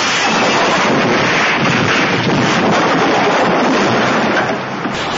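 Car rolling over in a crash: a continuous loud rush of crunching, scraping noise that eases off about four and a half seconds in.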